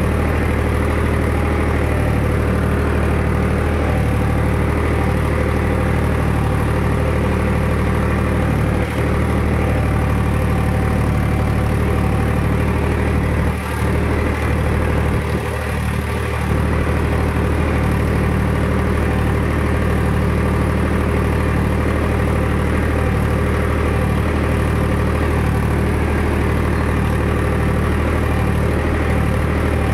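Farm tractor's diesel engine running steadily while pulling a cultivator, heard from the driver's seat, with a brief drop in level about halfway through.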